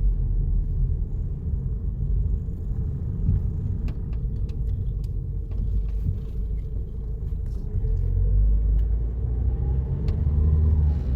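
Low, steady rumble of a car on the move, heard inside the cabin, with a few faint clicks.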